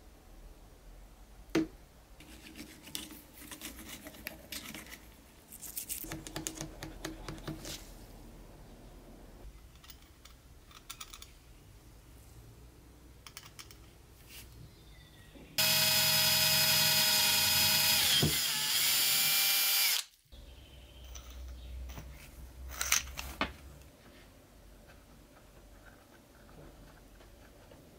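A small electric power tool runs for about four and a half seconds partway through, its pitch dipping briefly before it cuts off abruptly. Around it, light clicks and taps of small metal parts being handled on a workbench.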